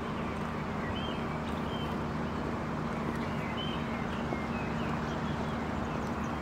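Steady low hum of idling truck engines, with birds chirping now and then above it.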